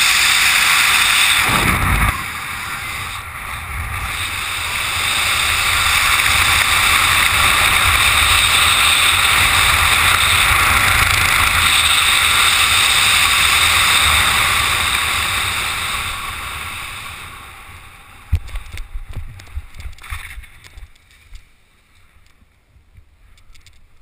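Rushing wind over a helmet-mounted camera's microphone during a skydive and canopy swoop. It dips about two seconds in, builds to full strength again, then fades away. A sharp thump of touchdown around eighteen seconds in is followed by scattered scuffing knocks as the noise dies down.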